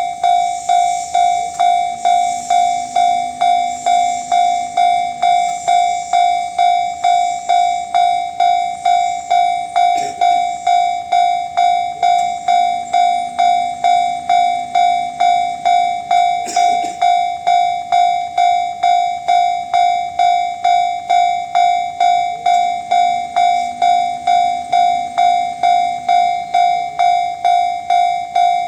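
Japanese railway level-crossing alarm giving the JR standard electronic warning tone, heard right beneath its speaker: a loud, ringing 'kan-kan' struck evenly about twice a second without a break.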